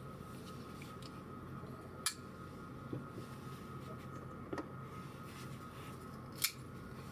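A few sharp clicks from folding knives being handled, the two loudest about two seconds in and near the end, over a steady low hum.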